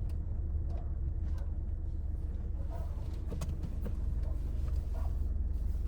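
Steady low rumble of a Citroen C5 Aircross driving in city traffic, with a few faint ticks over it.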